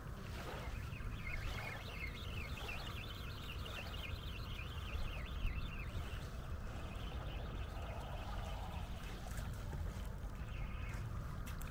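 Steady low rumble of wind on the microphone, with a run of short, quick, high-pitched chirps repeating through the first half.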